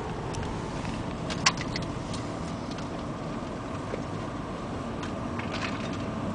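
Steady car and city traffic noise heard from inside the car's cabin. A sharp click about one and a half seconds in, with a few fainter clicks near it and later on.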